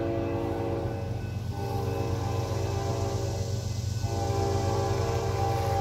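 Air horn of an approaching Norfolk Southern diesel freight locomotive sounding in long blasts with short breaks between them, over the steady low rumble of the locomotives' diesel engines.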